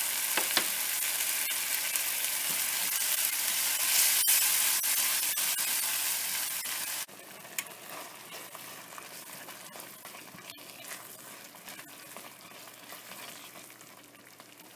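Onion, garlic and ginger masala paste sizzling in a nonstick frying pan with a little water just added, while a wooden spatula stirs it with scattered light scrapes and clicks. The sizzle drops suddenly to a quieter level about seven seconds in.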